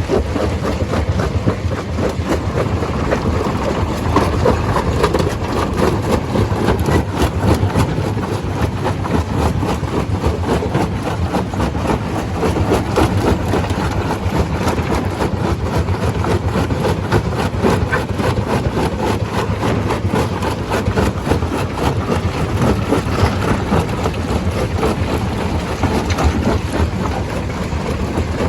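Stone crusher running under load: a loud, steady mechanical din packed with a constant rattle of small knocks as rock is broken.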